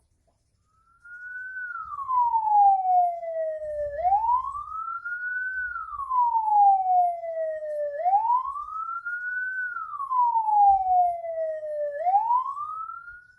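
Ambulance's electronic siren sounding a slow rising and falling tone. It starts about a second in, and each cycle takes about four seconds: a quick rise, then a longer fall. This is the tone used by an ambulance carrying a body (a hearse ambulance).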